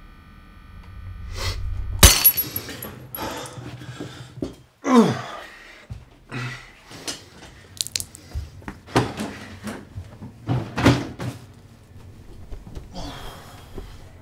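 A low rumble swells and breaks into a loud crash about two seconds in. A string of sharp thumps, knocks and clatters follows, with a sound falling in pitch about five seconds in.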